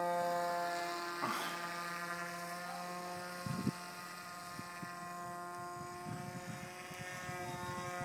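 Electric motor and propeller of a foam RC aircraft in flight, a steady buzzing whine whose pitch shifts a little about six seconds in.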